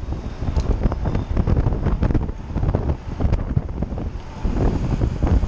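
Wind buffeting the microphone of a rider's camera on a mountain bike moving fast on a paved road: a loud, steady, low rumble with a few sharp clicks.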